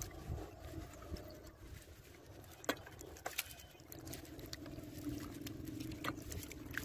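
Hands digging and scooping in soft wet mud: irregular squelching and patting with a few sharp clicks. A faint steady hum comes in about four seconds in.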